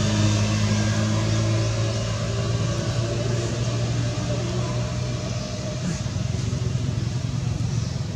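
A motor vehicle's engine running with a steady low hum, slowly growing fainter.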